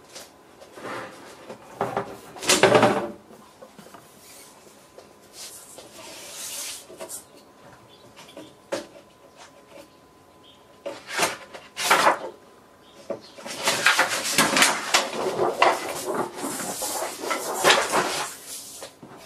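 An LCD monitor's backlight assembly being pried and lifted apart by hand. Irregular knocks, clicks and scraping of plastic sheets and the metal back chassis come in short bursts, and they run almost without a break for the last several seconds.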